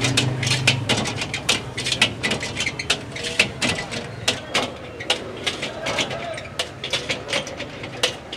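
Metal spatula and tongs clanking and scraping against a wok as chowmein noodles are stir-fried and tossed: quick, irregular clanks several times a second, with a low hum under the first two seconds.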